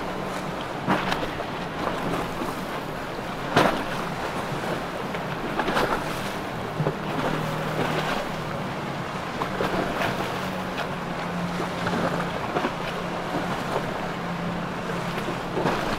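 Boat engine running with a steady low drone, over a wash of water and wind noise on the microphone. A few short, sharp knocks or splashes break through, the loudest about three and a half seconds in.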